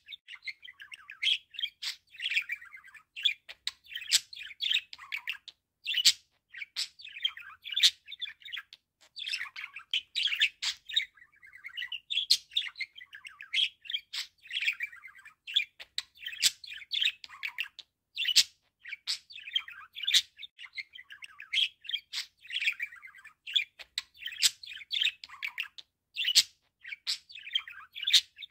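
Budgerigar warbling: a near-continuous chatter of squeaky chirps and sharp clicks, with only brief pauses.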